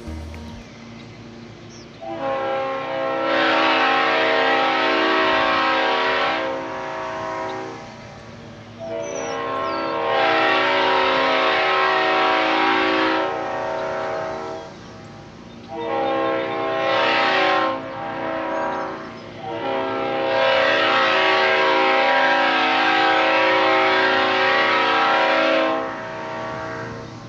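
Leslie RS5T five-chime locomotive air horn blowing four steady chord blasts in the long, long, short, long pattern, the grade-crossing signal. Each blast swells up to full volume at its start.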